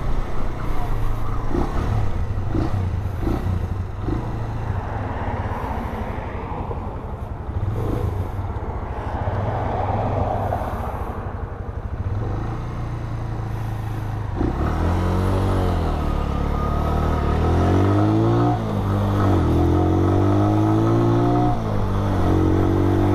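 Suzuki EN125 motorcycle's single-cylinder four-stroke engine running under way. About two-thirds of the way in, the engine note climbs and drops back several times as the bike accelerates through the gears.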